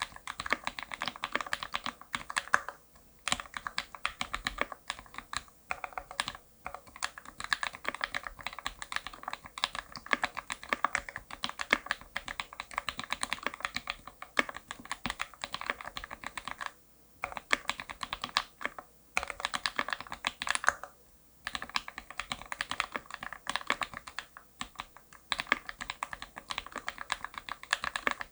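Continuous typing on a custom 65% mechanical keyboard with an aluminium plate, lubed Gateron Linjär linear switches and GMK Nautilus 2 keycaps. It makes a dense, fast stream of key clacks, broken by a few short pauses.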